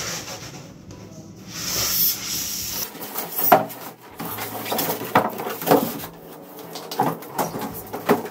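Unboxing handling noise: the white foam end caps and cardboard box of an iMac scraping and rubbing as the computer is lifted out. A rustling slide for the first few seconds, then a run of irregular sharp knocks and scrapes as the foam pieces are pulled off and set down.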